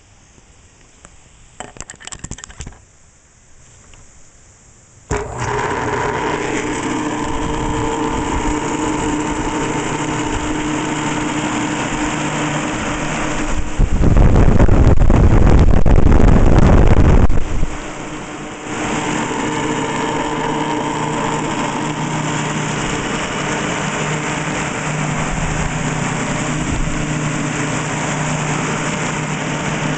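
Brief clatter of a power plug being handled, then a Dayton belt-driven exhaust fan switches on suddenly about five seconds in and runs steadily with a hum and rumble, the rumble coming from the unmounted fan vibrating on a wooden bench. In the middle, its airflow blasts across the microphone for a few seconds as a loud low rush.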